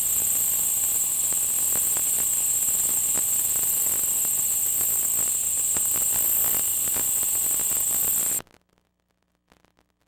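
Steady high-pitched hiss with faint scattered clicks, cutting off suddenly near the end.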